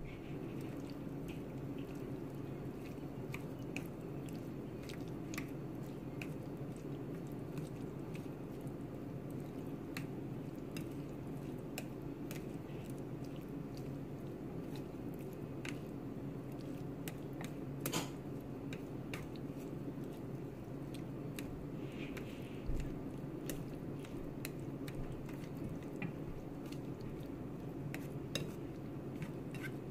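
Chopsticks mixing slippery sliced jellyfish with chili paste on a ceramic plate: soft wet squishing and scattered clicks of the chopsticks against the plate, two of them louder, over a steady low hum.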